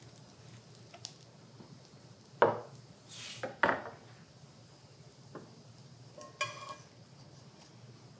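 Metal tongs and utensils clinking and knocking against a cast iron skillet and a wooden cutting board: a few separate sharp knocks, the loudest about two and a half seconds in, a short hiss a little after, and a brief ringing metal clink near the end.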